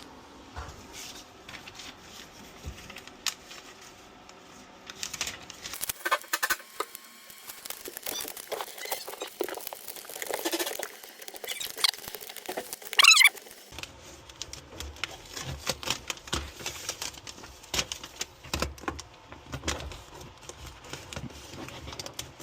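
Scattered clicks, taps and knocks of tools and parts being handled during installation work, with one brief wavering squeak, the loudest sound, a little past the middle.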